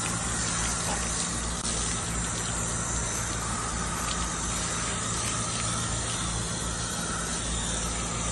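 Water spraying steadily from a garden hose spray nozzle onto a soapy dog's coat and splashing onto the wet concrete, over a low steady hum.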